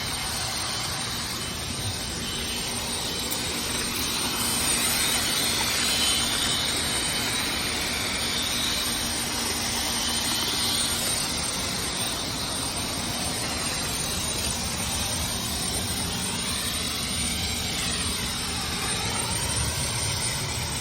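A steady, engine-like roar with a hiss, its tone sweeping up and down in the second half.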